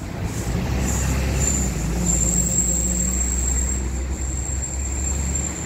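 Steady low rumble of a motor vehicle's engine close by, with a thin high whine above it; the rumble drops away near the end.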